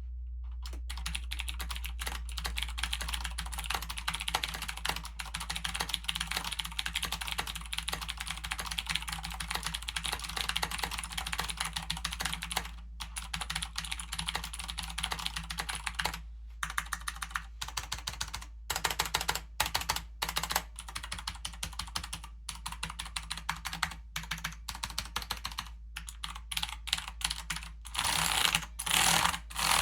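Vortex Tab 90 mechanical keyboard with clicky Cherry MX Blue switches being typed on: a fast, continuous stream of keystroke clicks for the first dozen seconds, then bursts of typing broken by short pauses. The loudest, hardest keystrokes come near the end, more smashing than typing.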